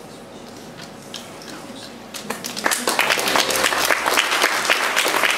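Audience applause breaking out about two seconds in after a quiet stretch of room murmur, quickly growing into loud, dense clapping.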